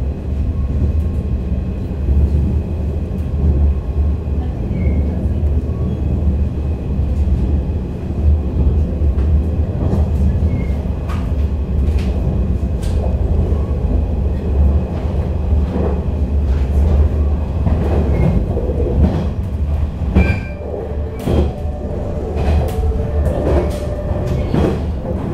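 Cabin ride noise of a 485 series electric express train running at speed: a steady low rumble with occasional rail clicks. In the last five seconds the knocks and clatter come sharper and more often.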